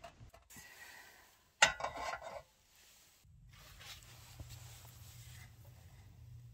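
Camp cooking gear being handled: a sharp metallic clink about a second and a half in that rings briefly, then a low steady hum under faint handling sounds.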